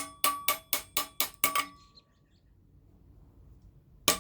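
Copper fitting being tapped onto a copper pipe: a quick run of about seven sharp metallic knocks that ring, about four a second, then a pause and one more knock near the end. The fitting is sticking and is being forced onto the pipe.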